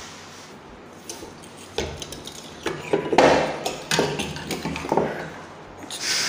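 Brass denture flasks in their screw clamp being handled: several metal knocks and clinks between about two and five seconds in. The flasks are packed with acrylic and about to be heat-cured.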